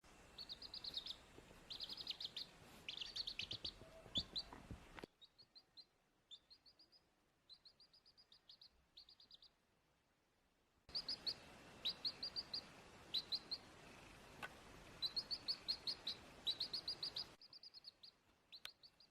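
High-pitched animal chirps in quick runs of several short notes, repeating throughout, with the background hiss cutting in and out abruptly between edited clips.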